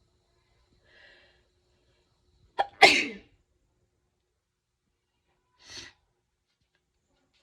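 A person sneezing: a faint intake of breath about a second in, then one loud, explosive sneeze near three seconds, and a second, much quieter short burst of breath near six seconds.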